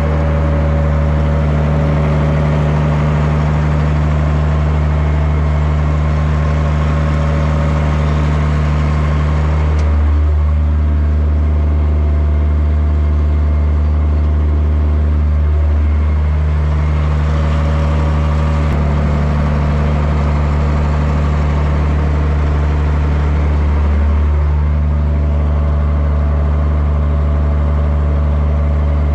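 Schlüter tractor's diesel engine running steadily under load at constant revs, pulling a seed drill, heard loud from inside the cab.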